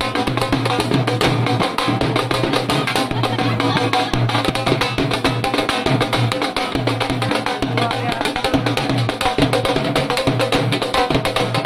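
Wedding drum band playing fast, dense teenmaar-style drumming.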